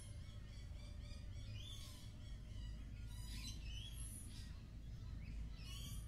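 Many birds calling all around at once: overlapping short chirps and repeated notes, with quick trills about three seconds in and again near the end. A steady low rumble runs underneath.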